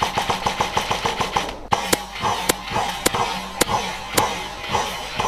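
Airsoft rifle firing a rapid string of shots at about seven a second. About 1.7 s in it gives way to sharper cracks roughly twice a second, with softer shots between them.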